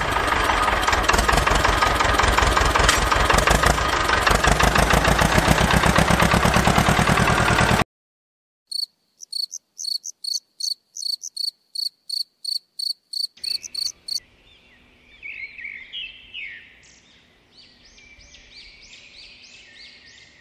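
A tractor engine running steadily with a fast, even pulse, which cuts off suddenly about eight seconds in. A rapid run of short, high, evenly spaced beeps follows, about three a second, and then faint, irregular high chirping with a low steady hum underneath.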